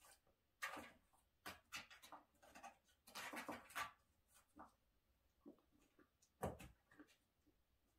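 A cat pawing and scrabbling at a cardboard box flap and the tissue paper stuffed inside it: scattered bouts of scratching and rustling, with one louder knock against the box about six and a half seconds in.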